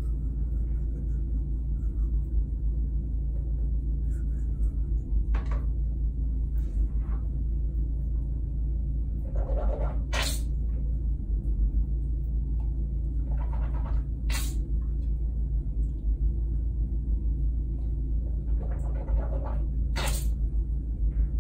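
Tap water running into a bathroom sink as a child fills a cup and rinses her mouth after brushing her teeth, over a steady low rumble. Three short sharp splashes come about 10, 14 and 20 seconds in.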